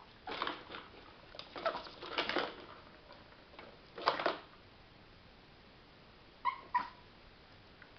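Chihuahua barking in several short angry bursts at a cat toy, then two quick high yips near the end.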